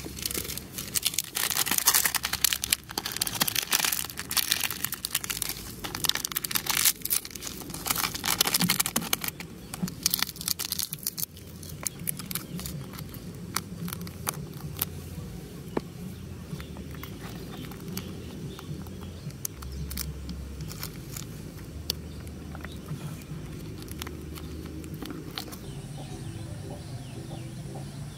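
Plastic seasoning sachets of an instant noodle cup crinkling and being torn open, dense and loud for the first ten seconds or so, then fainter scattered rustles and clicks.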